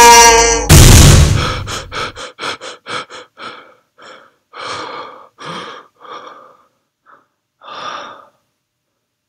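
A man's long scream falls in pitch and ends, then a sudden loud sharp gasp, as of someone jolting awake from a nightmare. Rapid panting breaths follow, slowing and growing fainter over several seconds.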